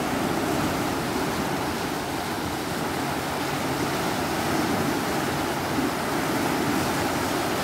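Water released through a canal lock gate, churning and rushing into the lock chamber as it fills, a steady rushing noise with no let-up.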